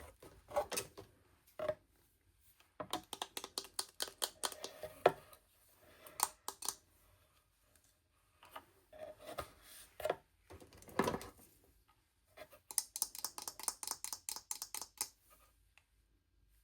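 Hands unwrapping and handling small plastic toy packaging: bursts of rapid crinkling and small clicks, broken by short pauses.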